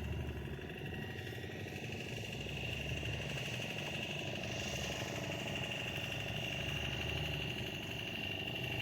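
A fishing boat's engine running steadily, a low throbbing hum with a thin, steady high tone over it.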